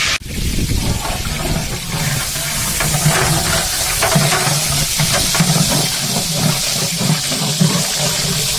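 Sliced onions frying in hot oil in a large aluminium cooking pot: a steady, loud sizzling hiss.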